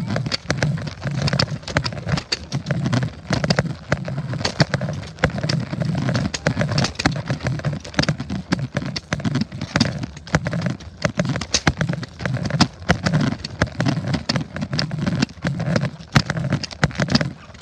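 Running footsteps and handling noise from a handheld phone camera, an irregular stream of knocks and thumps.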